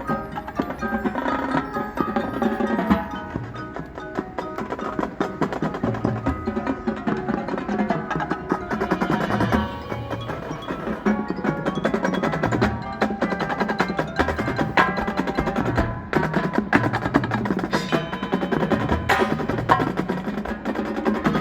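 Marching band music led by its percussion: mallet keyboards such as marimba and bells ringing over many quick drum and wood-block strokes.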